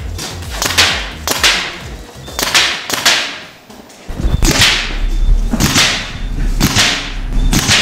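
Servo-triggered paintball marker firing shot after shot: about nine sharp cracks, spaced roughly half a second to a second apart, with a pause of about a second and a half midway.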